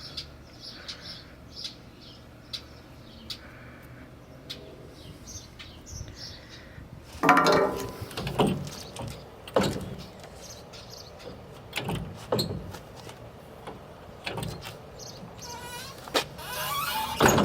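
Irregular knocks and clunks from work on a truck's body, the loudest about seven seconds in with a brief creak, the rest scattered and lighter.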